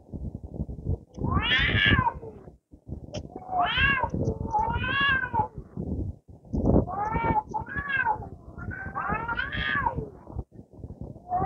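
Two domestic cats in a fighting standoff, yowling: a string of about seven long, drawn-out wails that rise and fall in pitch, with low ragged growling between them.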